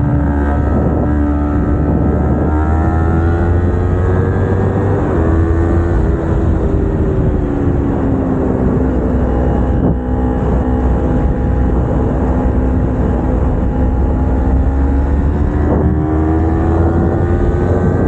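Kawasaki Ninja 250R's parallel-twin engine running while the bike is ridden, heard from on the bike. Its pitch eases down through the middle and climbs again near the end, over a low wind rumble on the microphone.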